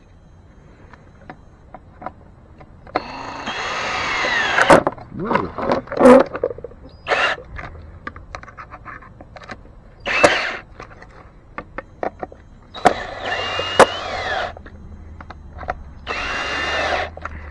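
Power drill with a screwdriver bit driving screws through an inverter's mounting flange into a plastic panel. It runs in several short spurts, its pitch changing as the screws bite, with knocks and clatter of handling between runs.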